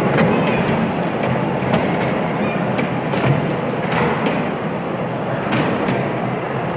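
Mall kiddie-ride train rolling around its small rail track: a steady rumble of the wheels, with a few sharp clicks as the cars go over the rail joints.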